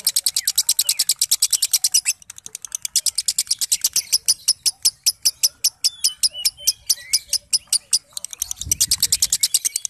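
Fischer's lovebird giving its long 'ngekek' chatter: a rapid string of high, sharp chips, about nine or ten a second, with a short break about two seconds in and a denser, faster run near the end.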